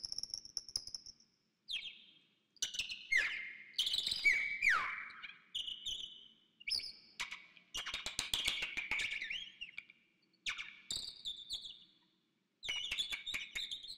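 A songbird singing in short phrases of high chirps, quick rattling trills and whistled notes that slide down in pitch, with brief pauses between the phrases.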